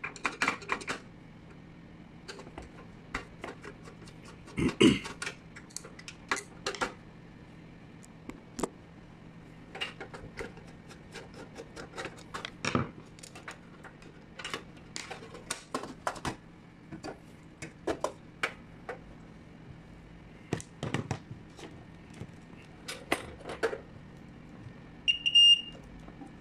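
Screwdriver, screws and the plastic switch-box cover of a stage lamp being worked by hand: scattered clicks, taps and rattles as the cover comes off and the wires are handled. A short high-pitched beep sounds about a second before the end.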